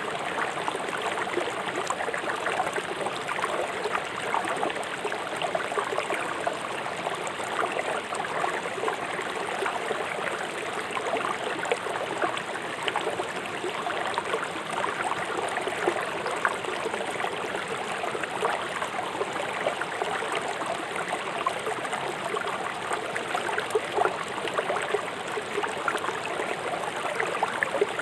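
Fast-flowing river rushing over rocks: a steady splashing and burbling of water.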